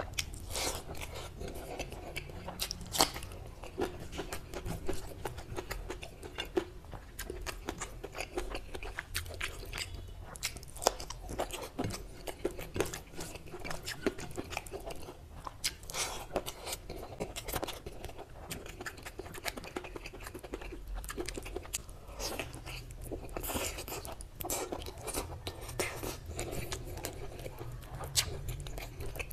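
Close-up eating sounds: chewing and biting into rice, mutton curry and fried brinjal, with wet mouth sounds and many irregular crisp clicks and crunches.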